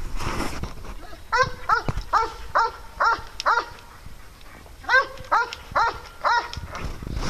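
A dog barking in short, fairly high play barks, two or three a second: a run of about seven, a pause of about a second, then four more, as dogs wrestle in play.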